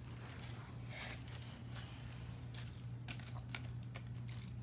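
Faint clicks and taps of small toy monster trucks being handled and set down among others, over a steady low hum.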